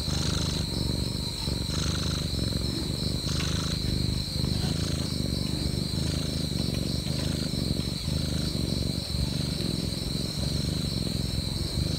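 Domestic cat purring close to the microphone, a low steady rumble that swells and eases with each breath, about once a second. A faint steady high-pitched tone runs behind it.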